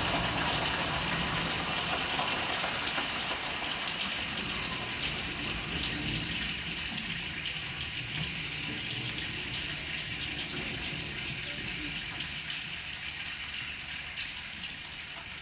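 A choir's imitation rainstorm: a steady rain-like hiss with scattered faint patters, slowly dying away.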